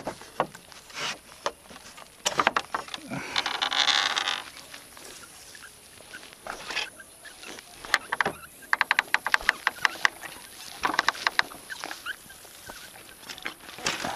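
Knocks, scrapes and rustling as a wooden fence is handled and climbed past, with two short runs of rapid clicking.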